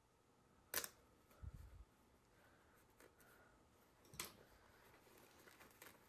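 Faint clicks of a razor blade working at the threads of a jeans bar tack, over near silence: one sharp click about a second in, another a little past four seconds, and a soft low thump between them.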